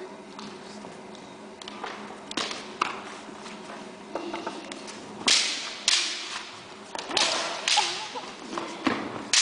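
Canes striking each other in a Bartitsu cane-fighting bout: a few light taps early, then from about halfway a run of sharp cracks, each ringing on in the echoing gym.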